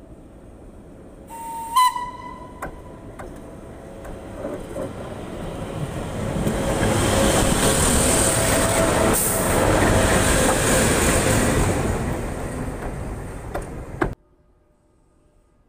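Electric locomotive gives one short horn blast, then rolls over the track directly overhead. Its running noise of wheels and clatter swells, stays loud for several seconds, and cuts off suddenly near the end.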